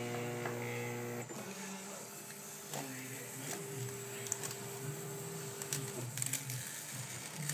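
A Roland Stika plotter rigged as a hot-wire polystyrene cutter buzzes steadily, then stops abruptly about a second in as the cut ends. Quieter handling sounds and light clicks follow as the foam block is lifted.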